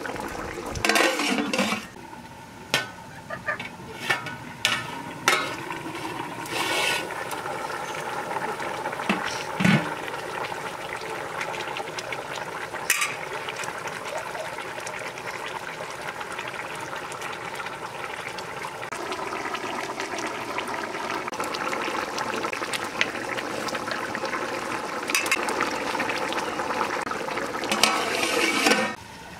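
Fish curry boiling hard in a large aluminium pot, a steady bubbling, with scattered short knocks. Near the end an aluminium lid is set over the pot.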